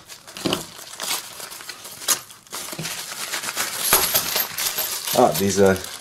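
Small metal GX12 circular connectors jingling and clinking against each other inside plastic bags as they are handled, with plastic crinkling.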